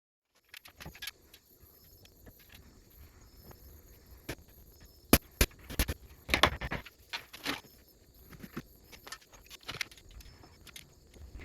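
Light, irregular knocks and clicks of hand work on wooden pieces. The sharpest taps come in a cluster about five to seven seconds in.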